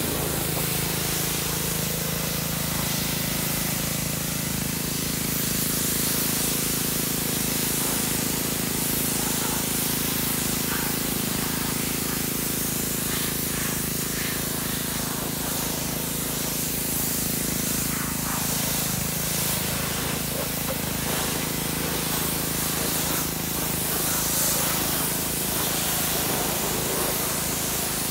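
Pressure washer jet spraying steadily against a car's body, blasting snow and water off it, with a steady low hum underneath.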